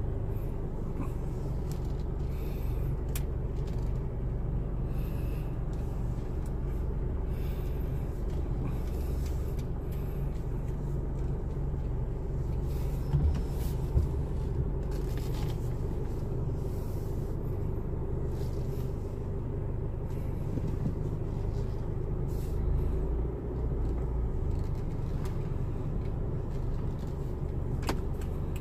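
Car running and pulling away, heard from inside the cabin: a steady low engine and road rumble, with two short knocks about halfway through.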